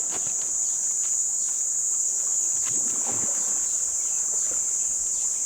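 Steady, high-pitched chorus of insects in the bush, unbroken throughout, with a few faint rustles and soft knocks beneath it.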